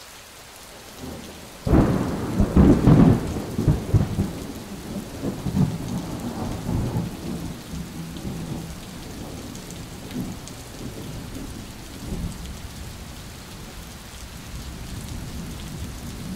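Thunderstorm: steady rain, with a thunderclap about two seconds in that rumbles on and fades away over several seconds.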